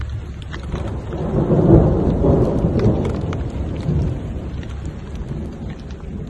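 Steady rain, with a rumble of thunder that swells about a second in and fades away by about four seconds.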